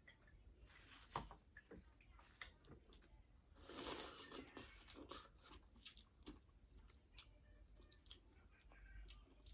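Faint eating sounds: crunching and chewing, with sharp clicks about a second in and again a second later, and a louder crunchy stretch near the middle, typical of king crab legs being cracked and eaten.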